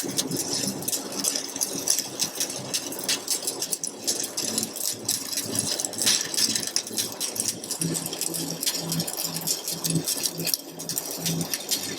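Electric welding arc crackling and sputtering steadily while a second weld run is laid, with a low hum coming and going in the latter part.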